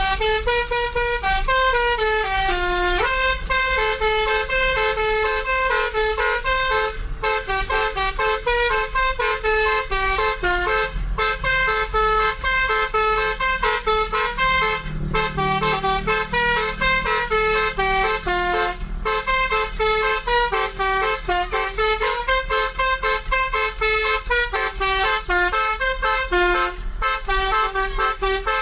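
Basuri telolet horn on a bus, its multi-tone air horns playing a quick stepping melody that runs without a break. A low engine rumble swells and fades about halfway through.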